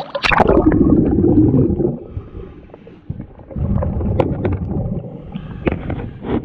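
A scuba diver's exhaled bubbles from the regulator, heard underwater: two long bubbling exhalations of about two seconds each, the first coming just as the camera goes below the surface.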